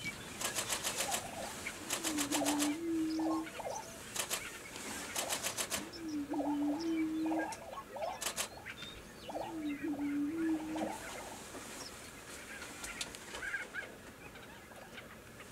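Male prairie chickens displaying on a lek: three low, hollow booming calls a few seconds apart, each about a second and a half long and stepping up in pitch. Bursts of rapid clattering foot-stamping and short clucking notes fall between them.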